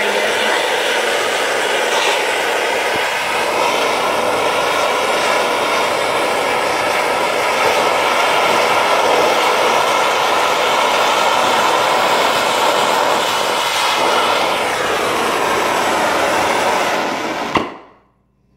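Acetylene torch flame running with a steady, loud hiss while melting sterling silver in a crucible. It cuts off suddenly with a short pop near the end.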